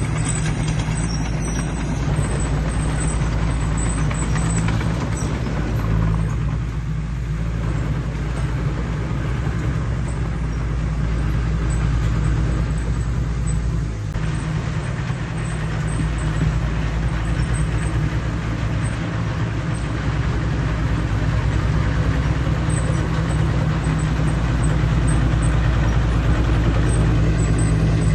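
Heavy diesel engine of earthmoving equipment running steadily, a continuous low drone with a rumbling noise over it, growing a little louder near the end.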